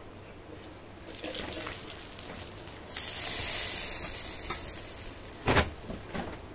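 Turmeric, chilli powder and salt sizzling in hot oil in a metal wok as a spatula stirs them; the sizzle builds about a second in and grows louder about three seconds in. A sharp knock, the loudest sound, comes about five seconds in, with a smaller one just after.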